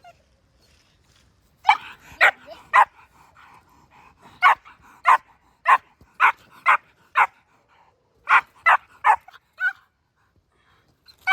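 Young Czech Shepherd barking: about a dozen short, sharp, fairly high-pitched barks in three quick runs, beginning after a brief pause, excited barks during tug and bite play.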